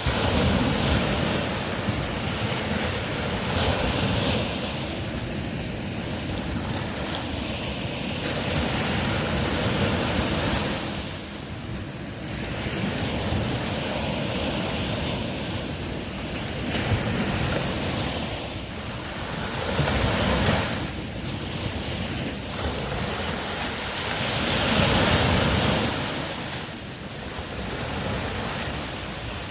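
Ocean waves washing onto the shore, a continuous rush of surf that swells and falls back in slow surges every several seconds.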